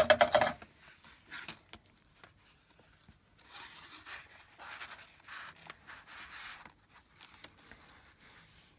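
Paper rustling and sliding as hands fold a sheet of patterned paper over glue-coated envelopes and rub it flat. A few sharp clicks come right at the start, then a run of soft rubbing strokes starts about three seconds in.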